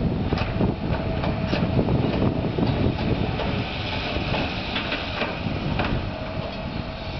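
Diesel engines and hydraulics of 45-tonne Caterpillar long reach excavators working, a continuous heavy rumble with scattered clanks and knocks and a faint steady whine that comes and goes.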